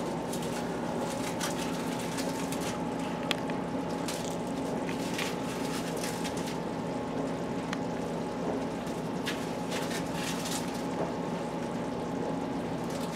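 Hamburger patties sizzling in a stainless-steel skillet: a steady frying hiss with irregular crackles and pops, over a steady low hum.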